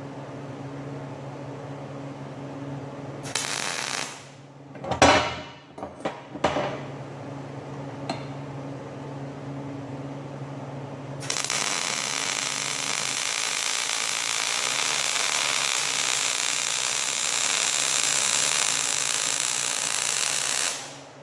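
Angle grinder running steadily with a motor hum. It touches metal briefly, a few loud clanks follow about five to six seconds in, and from about eleven seconds in it grinds steadily on steel for about ten seconds.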